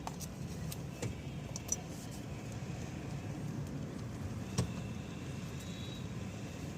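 Mahindra XUV300 steering column knocking as the steering wheel is turned, a few short clicks and knocks over a steady low hum. The noise persists with the clock spring removed, which the mechanic puts down to the steering column itself.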